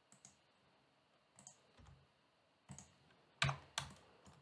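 Computer keyboard keys and mouse buttons clicking: scattered single clicks, the two loudest close together about three and a half seconds in.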